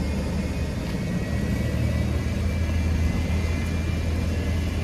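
Steady low rumble of street traffic and engines on a wet city street, with an even hiss of rain and water over it.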